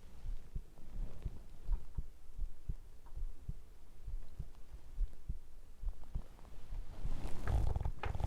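Soft low thumping of a heartbeat picked up by a microphone held against the belly, recurring every half second to a second. A louder, fuller rustling burst comes near the end.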